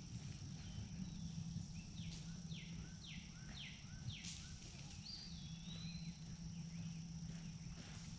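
Faint outdoor ambience with a steady insect drone, and a bird calling a run of about four quick falling notes a couple of seconds in, among other short chirps.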